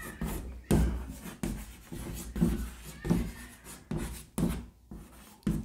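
Writing and handling noises on a desk: a string of irregular knocks and rubs, roughly one every half second to second.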